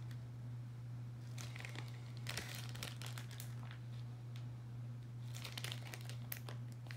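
Clear plastic bag of wax melts crinkling as it is handled, in three short spells, over a steady low hum.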